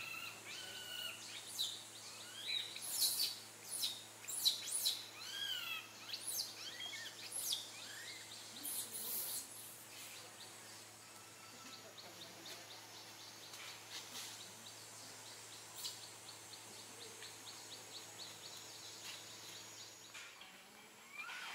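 Baby macaque crying in a string of short, high, arched calls, frequent at first and thinning out after about ten seconds, over a steady low hum.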